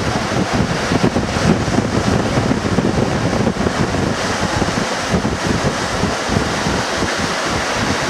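Breaking ocean surf washing steadily, with wind buffeting the microphone.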